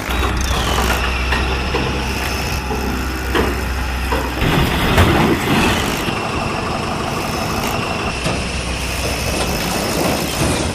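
A small motor running steadily, with a low hum and a high whine that settles slightly lower in pitch just after the start, and a few light knocks.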